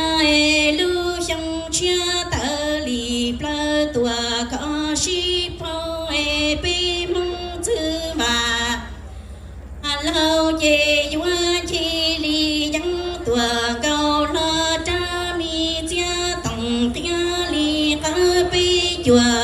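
A woman singing Hmong kwv txhiaj, traditional sung poetry, solo and unaccompanied into a microphone: long phrases of held, wavering notes stepping up and down, with a breath break about halfway through.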